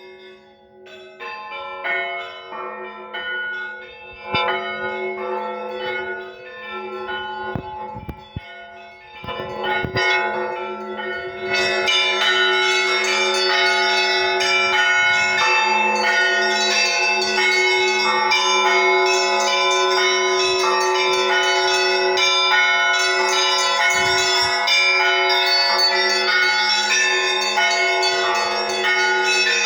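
Russian Orthodox church bells rung in a peal: a few lighter bells ring sparsely at first, a heavier bell strikes about nine seconds in, and from about twelve seconds all the bells ring together in a dense, continuous clangour.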